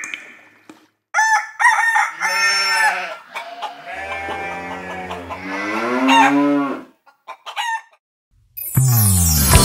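Chickens clucking in short, choppy calls, then a rooster crowing in one long call. Guitar music starts near the end.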